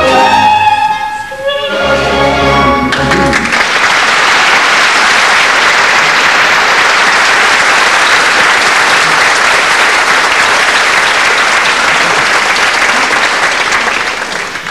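The song's instrumental accompaniment ends on a final held chord. An audience then applauds steadily for about ten seconds, and the applause fades near the end.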